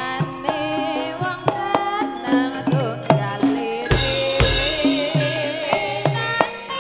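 Javanese gamelan ensemble playing: bronze metallophones ringing under mallet strokes, while kendang hand drums play repeated strokes that drop in pitch. A wavering melody line is held over it, and deep drum strokes sound about four seconds in.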